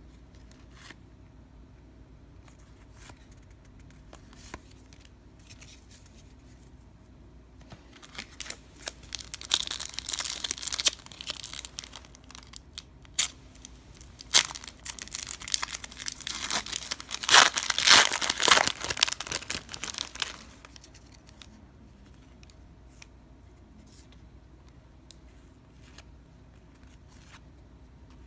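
A trading-card pack wrapper being torn open and crinkled for about twelve seconds in the middle, with faint clicks before and after.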